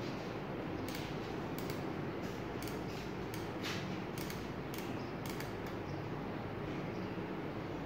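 Automatic solder-feed soldering gun at work on a lithium-ion cell terminal: irregular short, sharp clicks and crackles over steady background noise.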